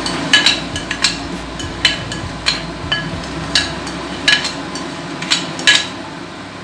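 Silicone spatula stirring a dry semolina, coconut and sugar mixture in a frying pan, with sharp taps and scrapes against the pan about twice a second.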